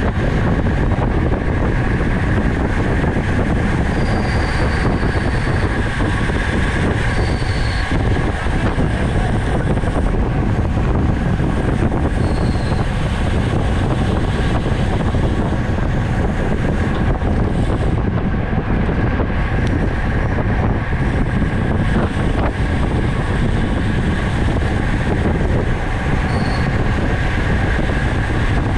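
Steady rushing noise of a racing bicycle in motion, mostly wind buffeting the camera microphone with tyre and drivetrain hum underneath. A few short high squeaks rise above it now and then.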